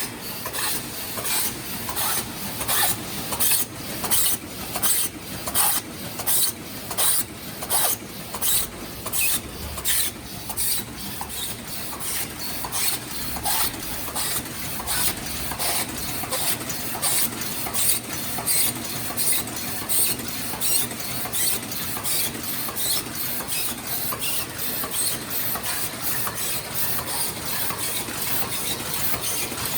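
Automatic embossed paper sleeve forming machine running, its mechanism clacking in a steady cycle of about three strokes every two seconds, the strokes blending into an even clatter later on.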